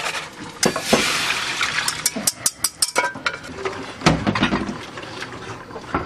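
Liquid poured into a saucepan, with a rushing splash for about a second and a half. Then comes a quick run of clinks as a metal wire whisk strikes and scrapes the pot, with scattered clinks after.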